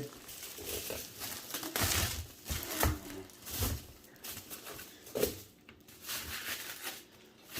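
Tissue paper rustling and crinkling, with a few light knocks from the box, as the packaging is handled.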